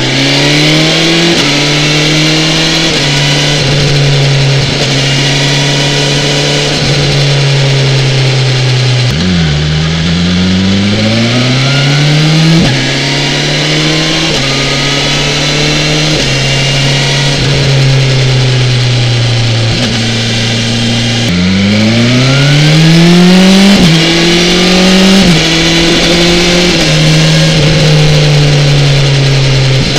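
BMW S1000XR's inline-four engine under way, running at a steady note for long stretches. About nine seconds in the revs drop, then climb and step down sharply as the rider shifts up; about twenty-one seconds in the revs climb again with two upshifts in quick succession.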